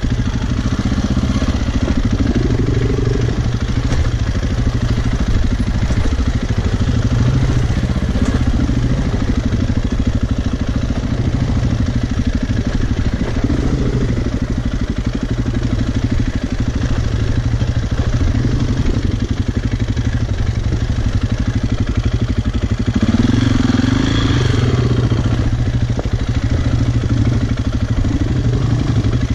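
Single-cylinder four-stroke enduro motorcycle engine running under way, its pitch rising and falling with the throttle several times, with the strongest burst about three-quarters of the way through.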